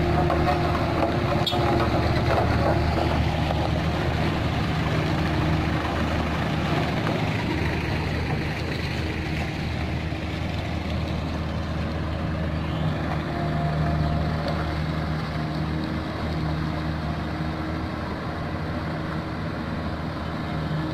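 Heavy diesel engine running steadily at low revs, with a mechanical clatter over it.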